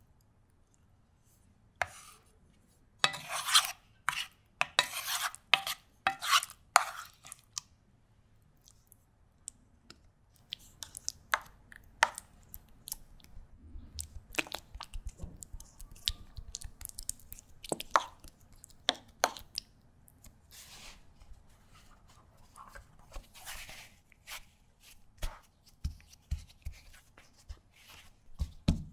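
A spoon scraping and clicking against caramelized apple pieces and a metal tart tin as the sticky fruit is moved and packed in, with a dense run of wet scraping about three to seven seconds in and scattered clicks after. Near the end come soft low taps as fingertips press a sheet of pastry dough down over the apples.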